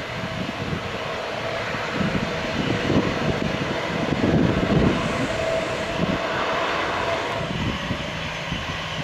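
Jet engines of a taxiing Boeing 737-800 (CFM56-7B turbofans) running at low taxi power: a steady whine over a continuous rushing noise.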